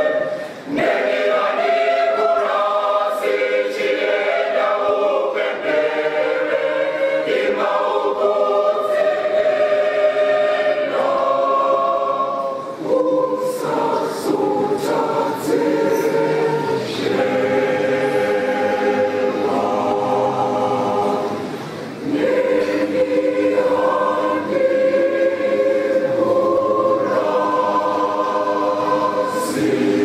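Mixed church choir of men's and women's voices singing a gospel hymn in parts, in long phrases with short breaks between them.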